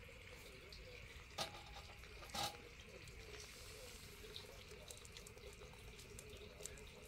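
Faint steady hiss of outdoor background, broken by two short sharp clicks about a second apart, the first about a second and a half in.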